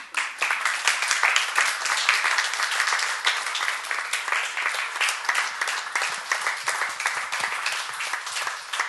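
Audience applauding: many people clapping, breaking out suddenly and continuing steadily.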